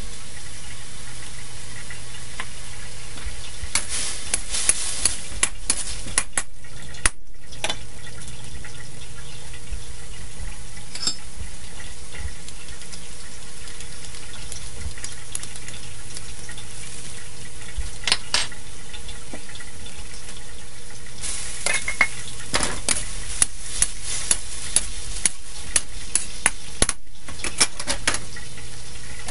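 Broccoli frying with a steady sizzle in a steel wok, with runs of sharp scraping and tapping strokes as it is stir-fried: several strokes from about four seconds in, a few around eighteen seconds, and a longer run near the end.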